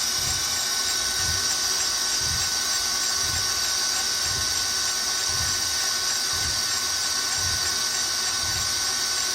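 Tsugami BE-12V CNC screw machine doing live milling: a steady high-pitched machining whine, with a low pulse about once a second.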